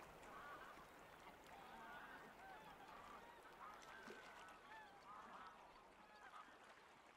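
Faint calls of a flock of waterbirds: many short calls overlapping, growing fainter toward the end.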